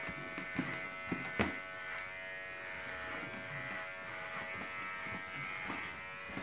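Steady electric buzz, with a couple of light clicks a little over a second in.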